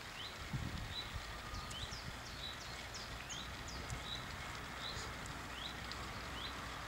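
Small birds chirping, a run of short high chirps about two a second, over a low steady rumble, with a brief low thump about half a second in.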